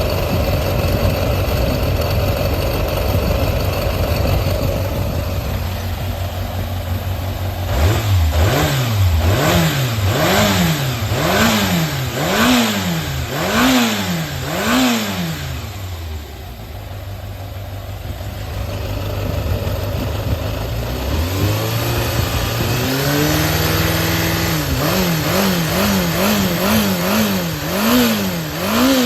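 Yamaha XJR400 air-cooled inline-four engine assembly running on test: idling steadily, then blipped up and down about six times, settling back to idle, held briefly at a higher speed and blipped again several times more quickly near the end. It runs without any abnormal noise, which the seller takes as a sign of a healthy, high-compression engine.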